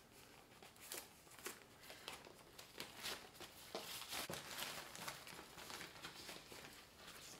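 Packing paper around a shipped plant crinkling and tearing as a knife slits it open and the wrap is unrolled, in faint, irregular rustles and crackles.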